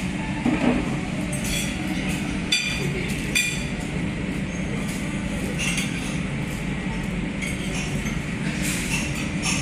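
Restaurant dining-room ambience: a steady low background hum with scattered clinks of tableware, a few of them close together in the first few seconds.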